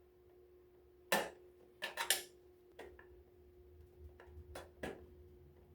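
Irregular light clicks and taps of a screwdriver working a screw out of the heater's housing, the loudest few close together about two seconds in.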